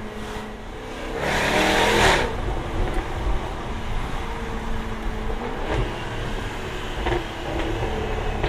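Jaguar F-Type R's supercharged 5.0-litre V8 and exhaust during a drive. A short, loud burst of acceleration comes about a second in, then the engine drops back to a steadier, lower running sound.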